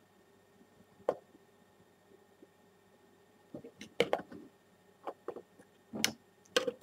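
Faint handling noise: a few scattered light clicks and knocks, several of them bunched together after the middle, over a faint steady hum.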